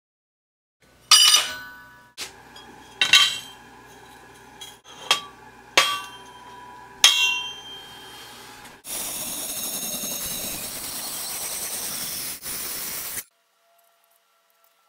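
Steel and stainless tube pieces set down on a perforated steel welding table: about six ringing metallic clanks spread over several seconds. They are followed by a steady hiss lasting about four seconds that cuts off suddenly.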